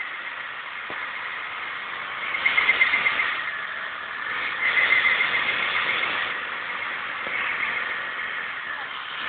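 Motorbike rear tyre squealing as it spins against the floor in a smoky burnout. The squeal is high-pitched and swells louder twice, about two and a half and five seconds in.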